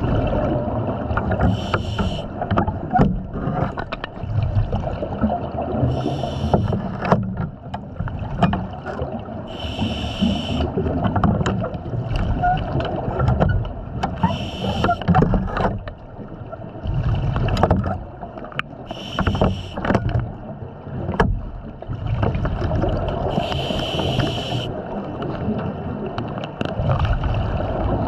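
A diver breathing through a regulator underwater. There is a brief hissing breath about every four to five seconds, with a bubbling rumble and occasional sharp knocks in between.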